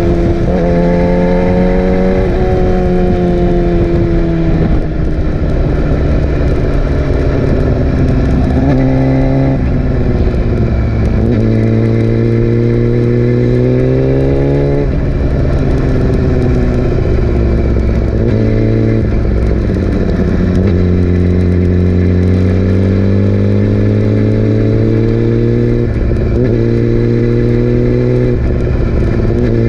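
Yamaha R6's inline-four engine under way, revs climbing and falling as it is ridden, with several sudden drops in pitch at the gear changes and a few quick rises back up.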